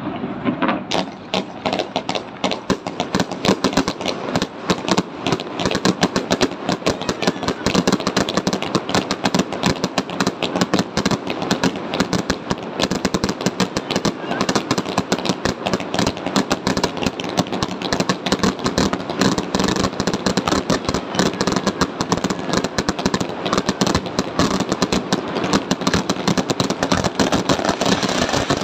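Fireworks crackling and popping in a dense, continuous barrage of rapid sharp reports.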